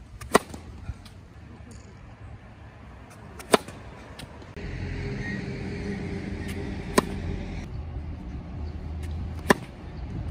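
Four sharp pops of a tennis racket striking the ball on serves, about three seconds apart. A steady low mechanical hum comes in a little before halfway and drops away near the end.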